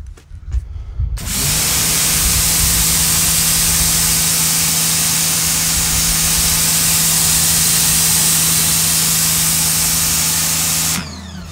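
Sun Joe SPX3000 electric pressure washer running, spraying plain water through its 15-degree nozzle onto composite decking: a loud, steady spray hiss over a steady motor hum. It starts suddenly about a second in and cuts off near the end.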